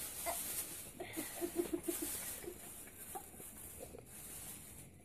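Faint stifled, closed-mouth giggling: a short run of about six quick 'hm-hm' laugh pulses about a second and a half in, with only faint scattered sounds around it.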